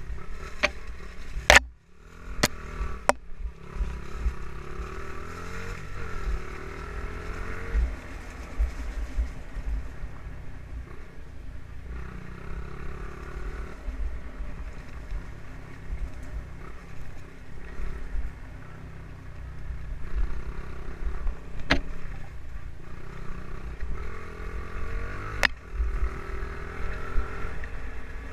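Honda CRF50 pit bike's small single-cylinder four-stroke engine running under hard riding, revving up and down through the gears, with wind buffeting the helmet-mounted microphone. Several sharp knocks cut through, the loudest about a second and a half in, and the engine sound briefly drops away just after.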